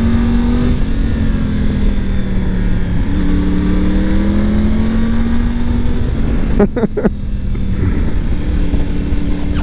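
Triumph Tiger's three-cylinder engine running at road speed through bends, its note easing and then picking up again about three seconds in, over wind rumble on the bike-mounted microphone.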